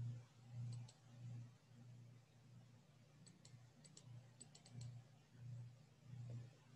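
Near silence with faint computer mouse clicks: two about a second in, then a quick run of them between about three and five seconds in, over a faint low hum that swells and fades a little faster than once a second.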